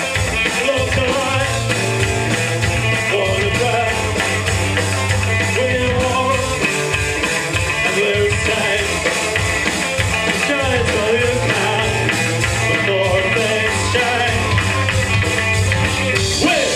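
Rock band playing a song live, with electric guitar, bass and drum kit.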